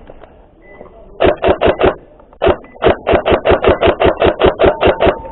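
Airsoft gun firing: a quick string of four shots about a second in, a single shot, then a longer run of about a dozen shots at roughly seven a second.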